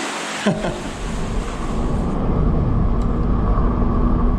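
A short falling sweep about half a second in, then the steady low rumble of a four-wheel-drive vehicle's engine and tyres driving along a track.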